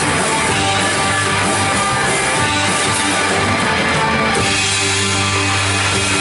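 Live worship band playing rock-style music with electric guitar and drums. About four seconds in, the sound thins to held chords.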